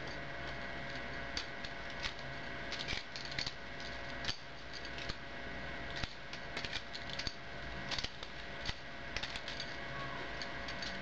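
Balisong (butterfly knife) being flipped, its handles and blade clicking and clacking against each other in quick clusters of small metal clicks, over a faint steady hum.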